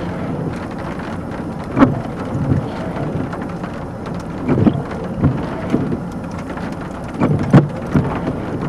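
Steady rushing noise of a thunderstorm's wind and rain, broken by three brief low thumps, about two, four and a half and seven and a half seconds in. The last thump is the loudest.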